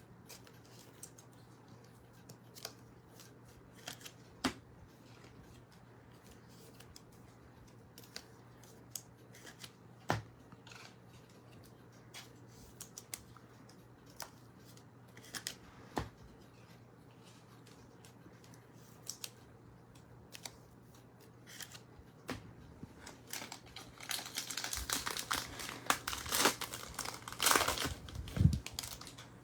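Scattered light clicks and taps of trading cards and packaging being handled, then, starting about 24 seconds in, several seconds of loud crinkling and tearing as a foil trading-card pack is cut and torn open.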